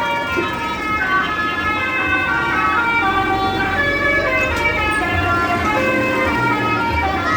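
Bus 'telolet' musical horn playing a tune of held notes that step up and down in pitch.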